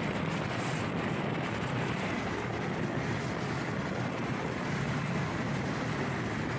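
Steady rush of wind over an action camera's microphone mixed with tyre and road noise from a Nami electric scooter riding at about 34 mph.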